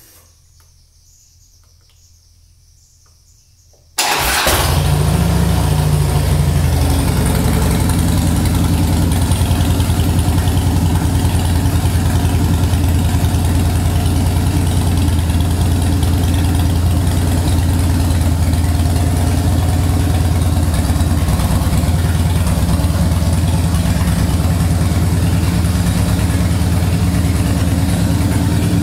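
A 2010 Harley-Davidson Fatboy Lo's V-twin, bored out to 103 cubic inches and breathing through a Vance & Hines full exhaust, starts about four seconds in. It runs slightly higher for the first couple of seconds, then settles to a steady idle.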